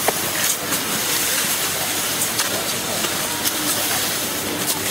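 Steady scraping hiss of skis sliding over packed snow, with a few faint clicks.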